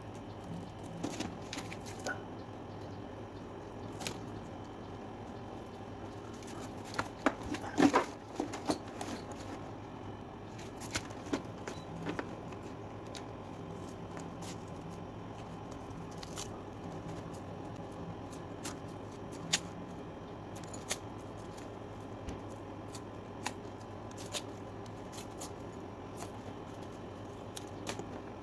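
Light clicks and taps of hands working masking tape onto a leather backpack, over a steady low hum. A short cluster of louder clicks comes about eight seconds in.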